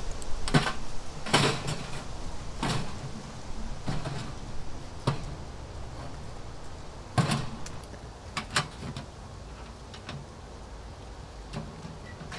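Metal knocks and clicks from a Winnerwell Nomad View box stove being handled and set up: its body set down, its folding legs swung out and its door opened. About nine separate sharp knocks, roughly a second apart, over the first ten seconds.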